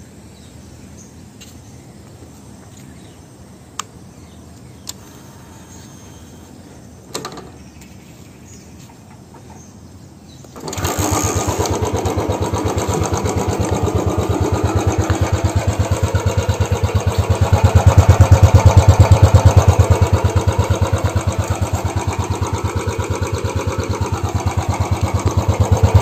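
A few faint clicks, then the Royal Enfield Bullet 350 BS6's single-cylinder engine starts abruptly a little under halfway through and idles through its stock silencer with an even, steady thump. The level swells for a couple of seconds about two-thirds of the way in, then settles back.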